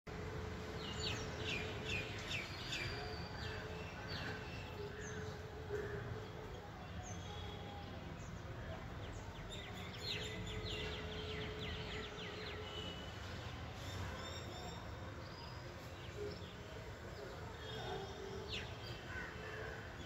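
Babblers calling: quick runs of short, rapid chattering notes, a burst about a second in and another around ten seconds in, with scattered calls between, over a steady low background rumble.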